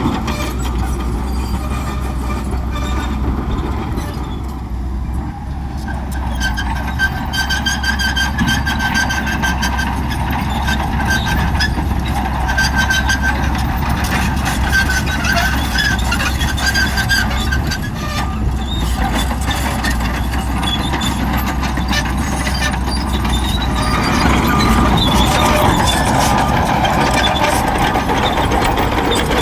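Shantui crawler bulldozer working, its diesel engine running with a steady low drone, while high-pitched squealing comes and goes over it.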